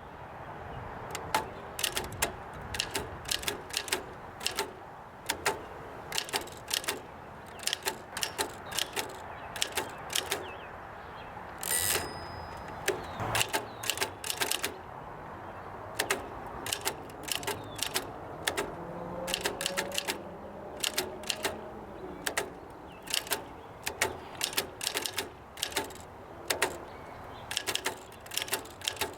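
Oliver No. 3 typewriter being typed on: its down-strike typebars hit the platen in an irregular run of sharp clacks, about two to four a second. About twelve seconds in there is a single ringing stroke.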